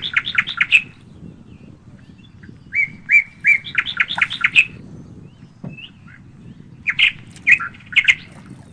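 A songbird singing three song phrases, each a run of quick repeated notes ending in a faster flourish, over a low steady background rumble.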